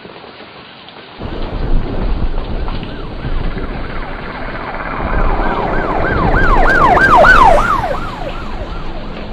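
A practiced "despair" sound effect: a low rumble sets in about a second in, then a wailing tone that swoops up and down about three times a second builds louder and fades away near the end.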